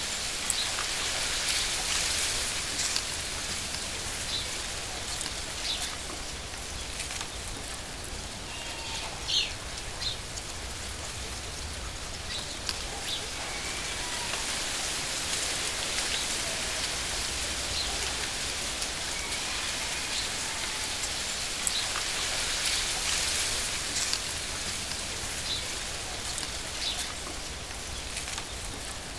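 Steady rain-like hiss of falling water, with a few short bird chirps scattered through it.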